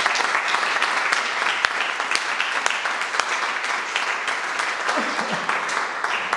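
Audience applauding: many hands clapping in a steady, dense patter, easing off slightly toward the end.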